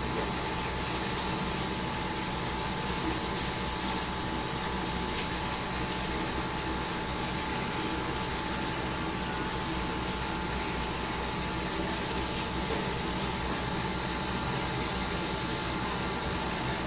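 Steady mechanical hum and hiss with a thin, high, unchanging whine.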